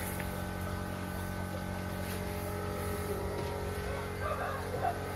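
A steady mechanical hum, like a motor or engine running without a break, with a few faint short sounds about four seconds in.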